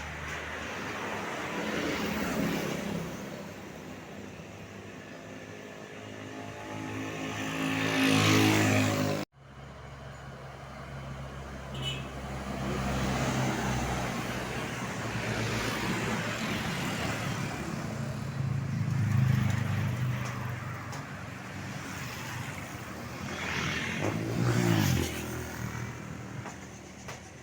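Road traffic at the roadside: a heavy vehicle's engine grows louder as it approaches and passes, then the sound cuts out abruptly. After that, more vehicles go by with steady road noise, swelling twice as they pass.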